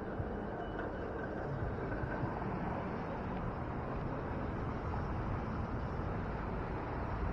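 Steady city street noise heard from a moving bicycle: traffic and wind rumble with no distinct events.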